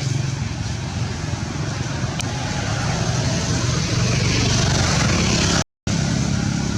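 Motor vehicle engine running close by: a steady low hum over traffic noise. The sound cuts out completely for a moment near the end.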